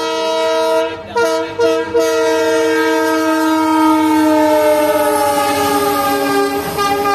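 Diesel locomotive's horn sounding one long blast as the train passes, broken off briefly about one and two seconds in. The pitch slides gently down as the locomotive goes by.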